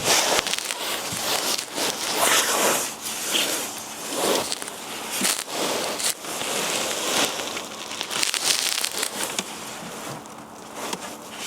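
Irregular crackling and crinkling as hands handle and press the adhesive LED light strip and its backing along the dashboard.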